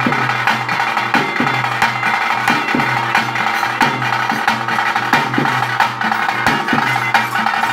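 Live ritual music for a bhuta kola (nema) dance: fast drumming with about two strong strokes a second, some sliding down in pitch, over a steady held tone from a wind instrument.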